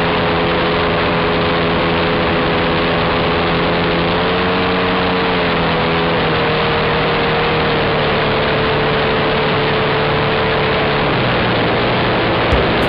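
Engine of a radio-controlled scale model aircraft running steadily, heard from a camera on board, with loud airflow noise. Its pitch shifts slightly about four and six seconds in, then drops about eleven seconds in as the throttle comes back while the model descends toward the runway. A few sharp thumps come near the end.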